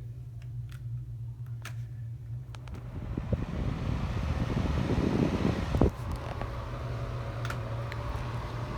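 Ceiling fan running with a steady low hum. A whooshing rush of air builds from about three seconds in and is loudest around five to six seconds, with a few faint clicks.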